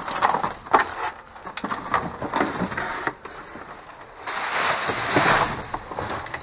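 Rummaging through trash in a dumpster: items being handled and knocked together in a string of short clatters, then a louder rustle lasting about a second, a little after four seconds in.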